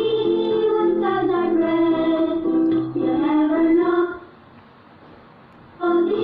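A custom tune played through an electronic alarm siren: a high, voice-like sung melody over a pulsing low beat. It stops about four seconds in and starts again near the end.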